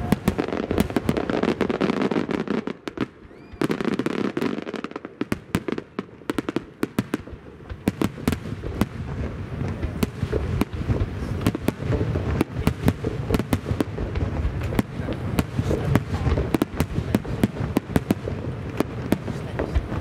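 Large starmine fireworks barrage: many shells bursting in quick succession, a dense run of sharp bangs and crackles over a continuous rumble. The bangs come a little more sparsely between about three and eight seconds in, then thicken again.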